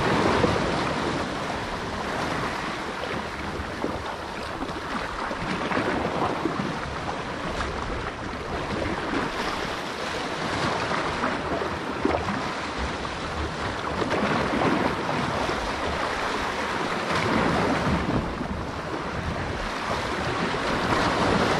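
Sea waves washing against a rocky shore, rising and falling every few seconds, with wind buffeting the microphone.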